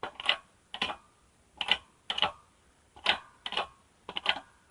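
A string of light, irregular metal taps and clicks, about a dozen, several coming in quick pairs, as parts are handled and fitted during axle reassembly.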